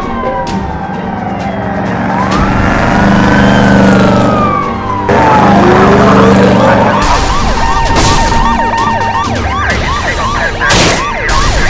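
Police sirens wailing, with slow overlapping rises and falls in pitch over a steady low engine drone. About seven seconds in, a fast yelp siren starts chirping about three times a second. A sharp bang comes near the end.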